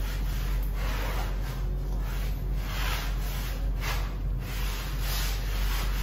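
A cloth wiping wet tile in repeated rubbing strokes, about one or two a second. The cloth is not soaking up the water well.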